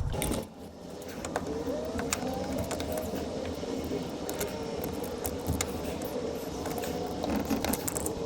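Sharp metallic clicks and clinks of retaining clips being pulled off Defiant lock cylinders with a clip tool, with a steady drone underneath from about a second and a half in.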